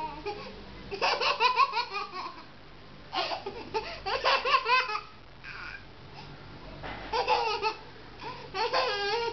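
A baby laughing in four fits of quick, high-pitched pulses, with short pauses between them.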